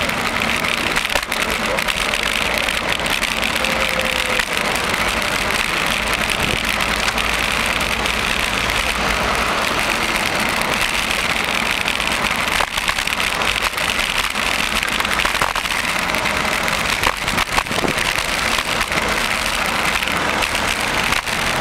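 Steady rushing noise of a bicycle ride along a city street with car traffic, with a few sharp knocks here and there.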